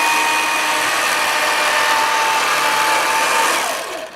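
A small electric motor running loud and steady with a whirring hum, then winding down in pitch and stopping near the end.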